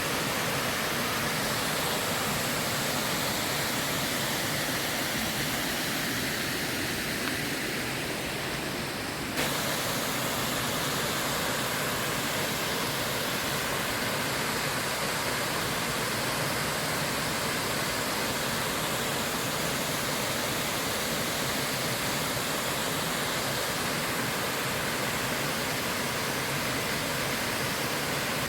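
Water rushing steadily, a dense even hiss, with a slight jump in level about nine seconds in.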